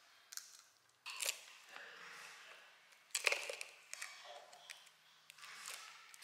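Small clicks and crinkles of lollipop candy in plastic wrappers being handled, in several short crackling bursts about a second or two apart.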